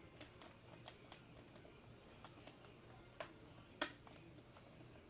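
Faint, scattered light clicks and taps of plastic vacuum cleaner parts being handled and fitted together, with one sharper click a little before the end.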